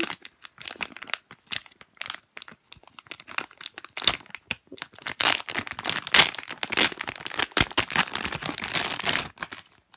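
Clear plastic packaging bag crinkling as it is handled and pulled open: a dense, irregular crackle that grows louder about four seconds in and stops shortly before the end.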